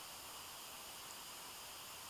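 Faint steady hiss with no distinct sounds: still winter air and the recorder's own noise.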